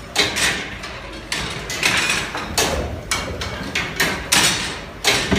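Full-size working replica of Newcomen's 1712 atmospheric steam engine running in steam: its mechanism clanks and knocks, irregularly, about one or two sharp knocks a second, over a steady low rumble and hiss.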